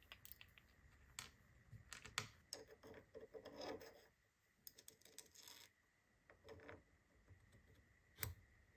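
Small brass blowtorch valve parts handled and fitted by hand: faint clicks and taps, a soft scraping rub about halfway through as parts go onto the valve spindle, and one sharp click near the end.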